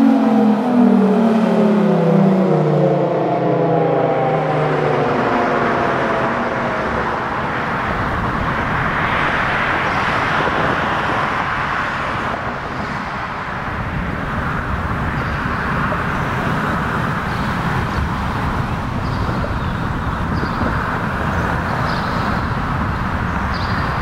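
Federal Signal Thunderbolt 1000 outdoor warning siren winding down at the end of its alert signal, its tone falling in pitch and fading out over the first several seconds. After that, wind buffeting the microphone and road traffic.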